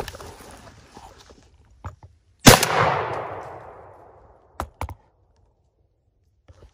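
A single gunshot about two and a half seconds in, its echo trailing off for nearly two seconds. Two quick sharp clicks follow about two seconds later.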